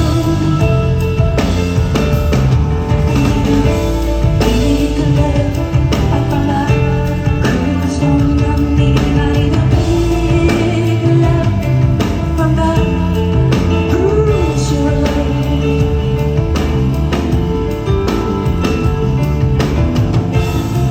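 Live rock band music, loud and continuous: a drum kit and bass playing under a woman's singing voice.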